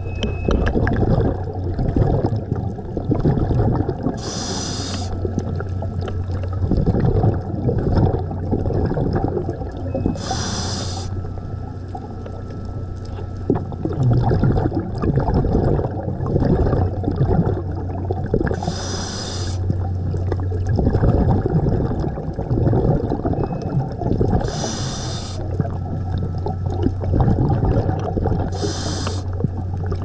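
Scuba diver breathing through a regulator underwater: five hissing inhalations several seconds apart, with bubbling exhalations in between, over a steady low hum.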